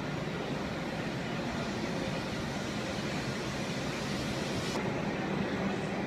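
Steady rumble and hiss of a Shinkansen bullet train at a station platform; the upper hiss drops away about five seconds in.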